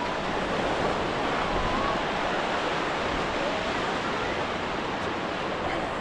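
Ocean surf breaking and washing onto a sandy beach, a steady rush of waves, with faint voices of people in the background.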